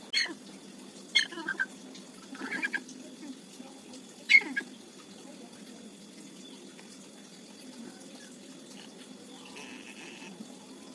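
A chicken giving about five short squawks over the first five seconds, then only faint background.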